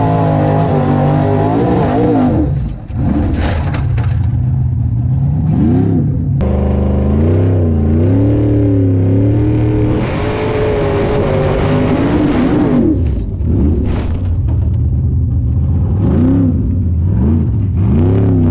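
Formula Offroad buggy's engine heard from inside the cockpit, revving hard and rising and falling in pitch over and over, with a few sudden dips as the throttle comes off and some sharp knocks.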